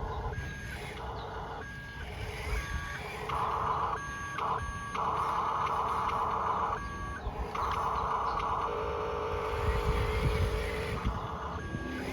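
Toy-scale RC construction vehicle's electronic reversing beeper sounding in short repeated beeps, over stretches of whining from small electric drive motors and gearboxes.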